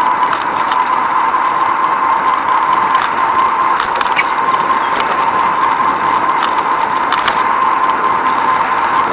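Bicycle rolling along a cracked asphalt path: a steady rushing noise with scattered clicks and rattles as it goes over bumps in the surface.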